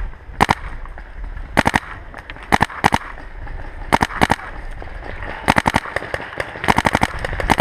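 Paintball markers firing in several short, rapid strings of shots, with pauses between the strings.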